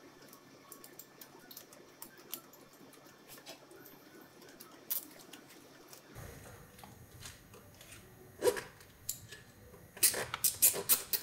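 Nylon cable tie being worked through a motorcycle oil cooler guard and bracket: light plastic clicks and rubbing, then near the end a quick run of sharp clicks as the tie is pulled through its ratchet.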